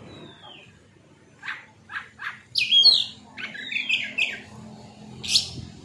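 Oriental magpie-robin (kacer) singing: after a faint downward whistle, a run of loud, varied whistled and sweeping notes begins about a second and a half in.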